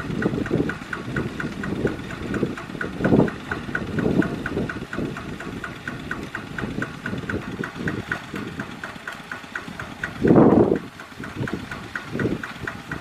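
Single-cylinder diesel engine of a two-wheel walking tractor idling, an even rapid beat of about five ticks a second. A few brief louder sounds come over it now and then, the loudest about ten and a half seconds in.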